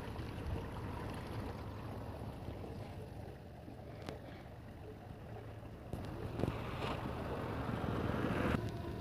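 A vehicle engine running steadily with wind buffeting the microphone. It gets louder from about six seconds in until shortly before the end, and there is a single click about four seconds in.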